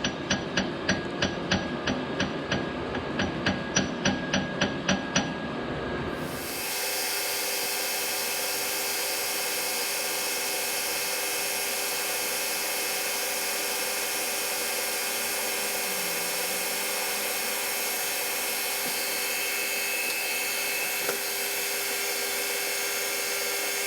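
Light, evenly spaced knocks, about three a second, for the first six seconds, then a metal lathe running steadily with a constant hum and whine.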